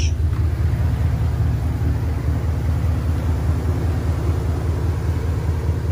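Pickup truck's engine idling steadily, a low even rumble.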